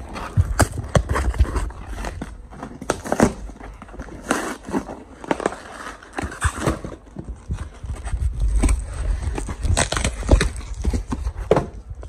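Packing tape being ripped and peeled off a small cardboard box, with the cardboard crackling and knocking as it is handled, in a run of irregular rips and rustles.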